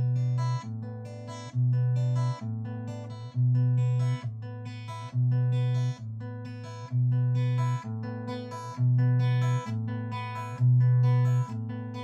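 Background music: a plucked guitar playing a steady picked pattern over a low bass that alternates between two notes about once a second.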